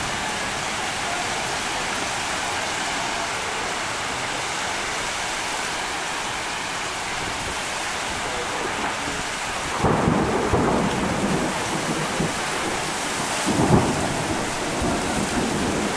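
Heavy wind-driven rain from a severe thunderstorm, pouring down steadily, with two louder low rumbles about ten and thirteen seconds in.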